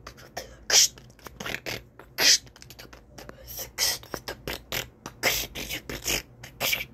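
A boy beatboxing: a quick, uneven string of short, sharp hissing strokes, mixed with a few low mouth-made thumps.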